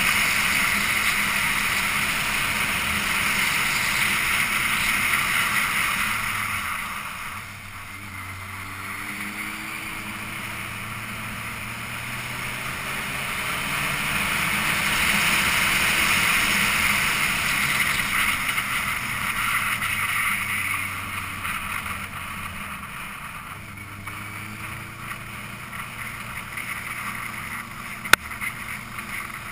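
Riding a motorcycle on a winding road: wind rushing over the microphone, loud at speed and dropping back twice as the bike slows, when the engine's note comes through with rising pitch as it accelerates. A single sharp click near the end.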